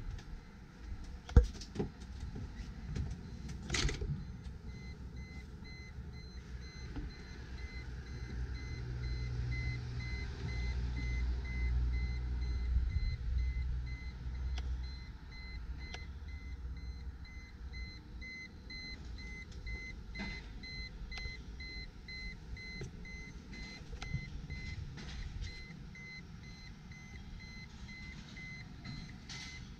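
Outdoor ambience with a faint, rapidly repeating electronic beep running through most of it, a low rumble that swells in the middle, and a few sharp knocks in the first four seconds.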